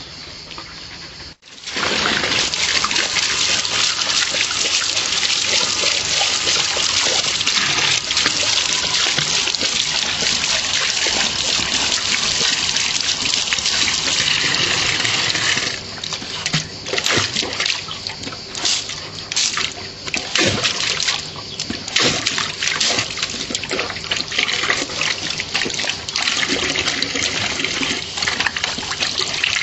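Water from an outdoor tap running into a metal bowl. Past the halfway point the flow turns uneven and splashy as a Dobermann puppy drinks and snaps at the stream.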